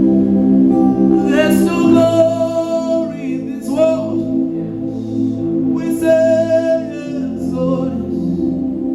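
Slow gospel worship music: held chords carry throughout, and a singer comes in with long drawn-out notes twice, about a second and a half in and again about six seconds in.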